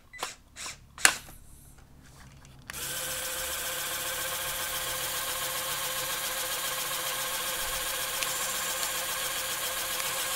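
A few light plastic clicks, then the small electric motors and pneumatic pumps of a motorised Mould King 19002 pneumatic crane truck model start about two and a half seconds in and run steadily while the pneumatic crane boom folds down.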